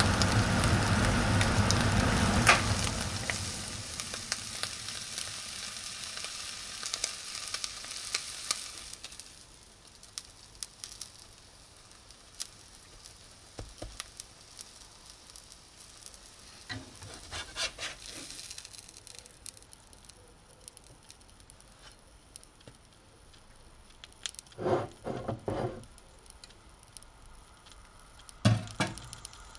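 An egg-dipped cheese sandwich sizzling in a nonstick frying pan while a metal spatula scrapes and knocks against the pan. The sizzle is loud at first and dies away over the next several seconds, leaving a few short clatters of kitchenware later on.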